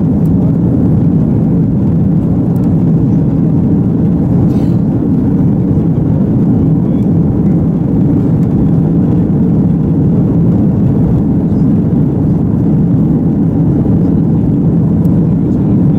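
Airbus A330-300 jet engines and airflow, heard as a loud, steady, low-pitched drone inside the passenger cabin during the climb after takeoff.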